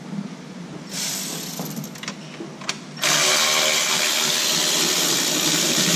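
A cordless power tool with a 10 mm socket on an extension spins out bolts on the supercharger snout. A short run with a few clicks comes about a second in, then a loud steady run starts about halfway through and is still going at the end.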